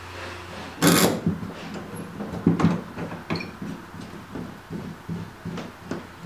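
Metal clamps being handled and fitted onto a wooden seat riser inside a boat hull. A brief loud scrape about a second in is followed by a string of small clicks and knocks.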